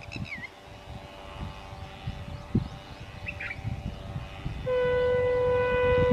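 Indian Railways diesel locomotive's horn sounding one steady blast of about two seconds, starting about three-quarters of the way in, over the low rumble of the approaching train.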